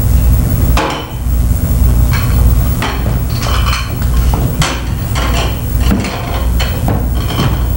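Repeated loud knocks, roughly one a second, over a low hum that pulses on and off in a steady rhythm.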